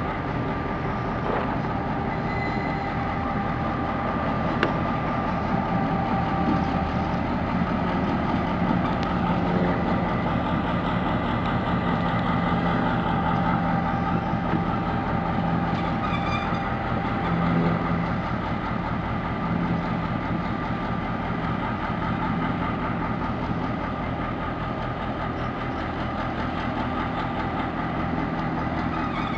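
EMD 645 V8 diesel engine of a DBR-class locomotive running steadily at low power as the locomotive creeps along, a low engine note with a steady high whine over it.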